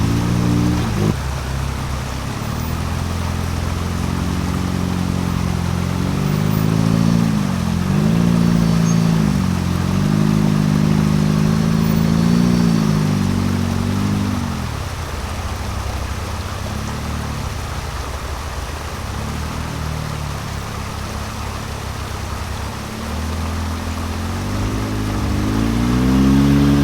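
An off-road vehicle's engine revving in slow surges while rock crawling. It climbs about a quarter of the way in, eases off around halfway, and climbs again near the end, over a steady rushing hiss.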